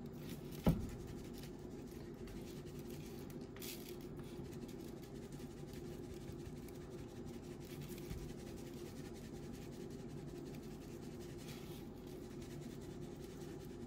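Dry seasoning rub shaken from a shaker jar onto raw steaks on a metal sheet pan, with soft scratchy sounds of hands turning and patting the meat in the rub. A single dull thump comes about a second in, and a steady low hum sits underneath.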